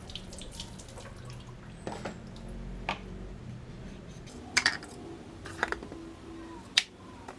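A kitchen knife cutting a carrot on a wooden chopping board: a few sharp, scattered taps of the blade against the board over a low room hum.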